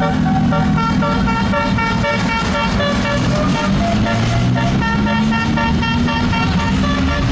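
Tour bus 'telolet' horn playing a quick melody of short stepped notes, while the bus engine's pitch rises steadily in the second half as it speeds up.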